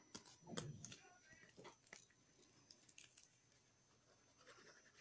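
Faint handling of paper and card: small rustles, scratches and taps, with one brief louder sound about half a second in.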